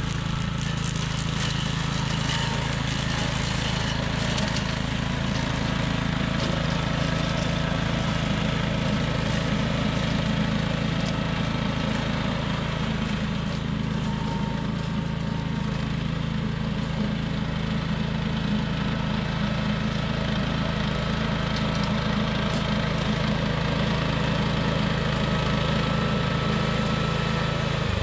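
Billy Goat Outback walk-behind brush cutter's gas engine running steadily under load as it is pushed through dry grass and brush.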